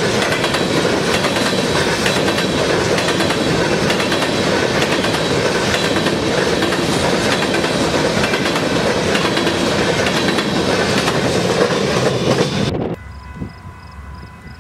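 Union Pacific intermodal freight train rolling past close by: a steady loud rumble of its cars, with steel wheels clicking over the rail joints. About thirteen seconds in, the sound cuts off suddenly and drops to a much quieter background with a faint steady tone.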